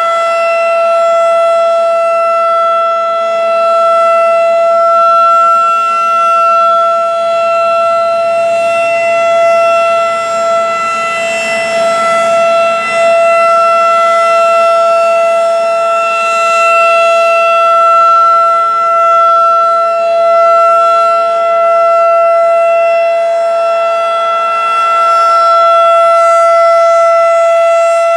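Federal Signal 2001-DC roundback tornado siren sounding a steady test tone at a constant pitch. It is loud, and its volume rises and falls gently every few seconds.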